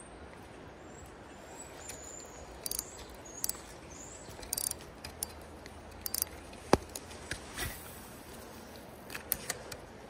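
Scattered sharp clicks and ticks of a spinning reel and rod being handled while working a jerkbait, the sharpest about two-thirds of the way through, over a steady low background hiss of water and air.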